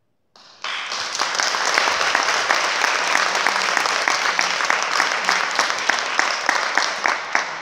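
Audience applause breaking out about half a second in, many hands clapping together, thinning near the end to fewer, more distinct claps.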